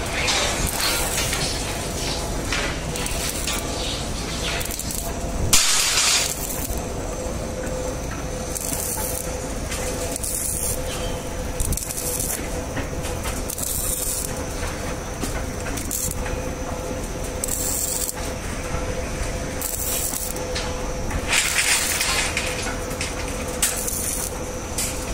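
Electric arc welding on steel rebar: short bursts of crackling hiss, each about half a second to a second long, recurring every one to two seconds, the loudest about five and a half seconds in. A steady machine hum runs underneath.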